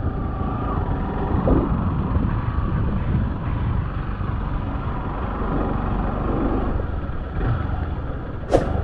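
Motorcycle engine running steadily at low road speed on a dirt road, with low rumble and noise from the ride on the helmet-camera mic. A single sharp click near the end.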